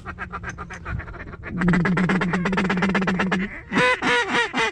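Mallard duck calls blown up close: a long, very fast feeding chatter, then a few longer hen quacks near the end, calling to circling ducks.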